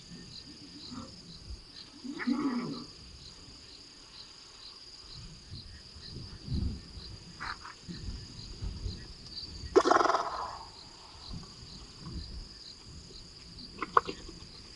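Crickets chirping steadily, about two chirps a second, with low knocks and rubbing and a few short animal calls over them; the loudest call comes about ten seconds in.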